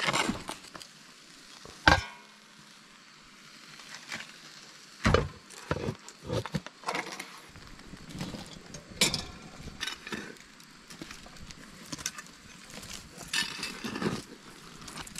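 Cast-iron Dutch oven being set back over a campfire and coals and burning wood being pushed onto its lid: irregular metal clanks and scrapes, the loudest knock about two seconds in, with the fire crackling and popping between them.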